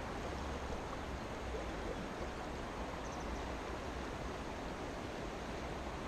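Steady rush of river current flowing over a shallow stony riverbed.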